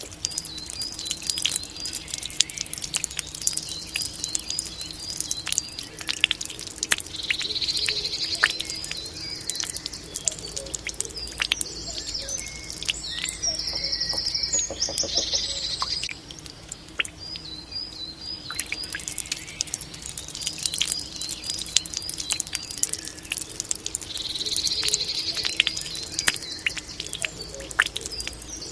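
Water dripping and trickling from a Japanese bamboo fountain, with many small drops, while songbirds chirp in quick repeated series and twice give a longer trill.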